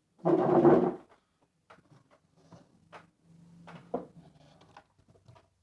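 Handling noise from repair work on electronics: a loud scrape or rattle lasting under a second near the start, then a series of light clicks and knocks.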